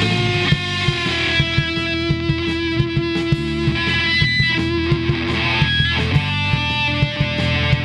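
A rock band playing: electric guitars holding sustained notes over a steady drum beat.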